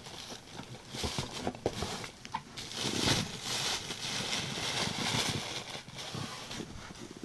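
Rustling, with light clicks and knocks, as a shoebox and its shoes are handled.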